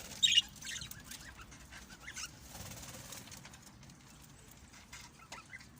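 Birds calling: one loud, sharp high call just after the start, then scattered short chirps that thin out, with a few more near the end.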